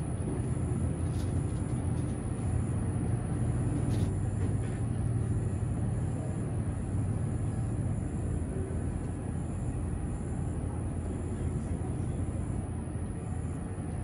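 Outdoor ambience: a steady low rumble with a faint, high chirp repeating about once a second.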